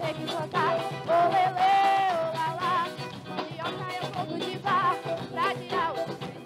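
Carimbó music playing, with a wavering melody line over the accompaniment.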